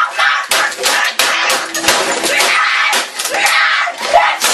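A boy screaming in a tantrum, with a dense run of loud clattering and banging.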